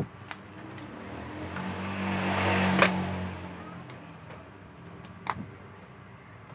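A motor vehicle passing by: its engine sound swells to a peak about two and a half seconds in, then fades by four seconds. Sharp clicks, the loudest at the peak and another about five seconds in.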